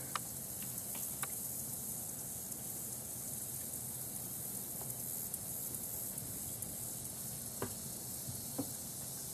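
Steady high-pitched hiss of an insect chorus, with a few faint clicks.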